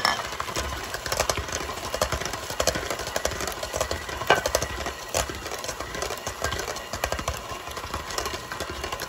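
KitchenAid electric hand mixer running, its beaters working an egg into thick cream puff dough in a stainless steel bowl, with frequent irregular clicks and knocks of the beaters against the bowl.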